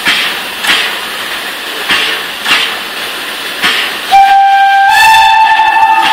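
TKt48 tank steam locomotive standing with regular puffs of steam, a little under two a second. About four seconds in, its steam whistle blows loud and steady, stepping up in pitch after about a second.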